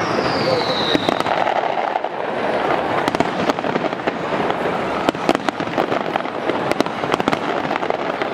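Fireworks display: a dense, steady run of bangs and crackles, with a high whistle falling in pitch in the first second.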